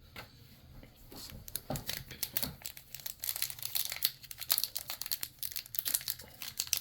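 Plastic foil trading-card pack wrapper crinkling in a rapid, irregular crackle as it is handled and torn open, starting about a second in.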